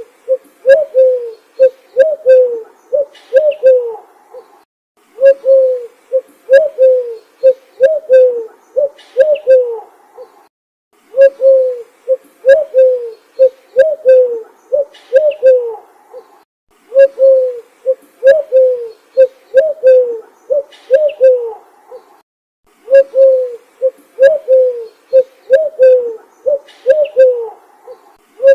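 A bird calling in phrases of rapid, low, falling hoot-like notes, each phrase about five seconds long, separated by pauses of about a second and repeating every six seconds or so.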